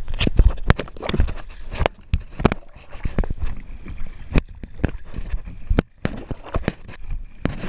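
Kayak being paddled: irregular sharp knocks and clicks, several a second, from the paddle strokes, with a low rumble of wind on the microphone.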